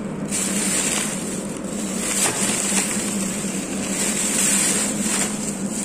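Steady background noise with a constant low hum, and a few brief handling clicks or rustles.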